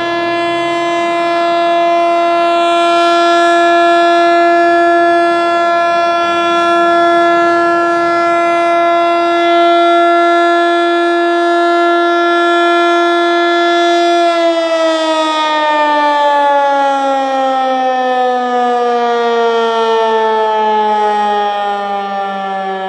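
ASC T-121 AC/DC electromechanical outdoor warning siren sounding its steady alert tone at about 340 Hz. About 14 seconds in the tone stops holding and the pitch slides steadily down as the siren winds down at the end of its 3-minute alert cycle. The owner thinks this unit is underpowered, not getting enough voltage.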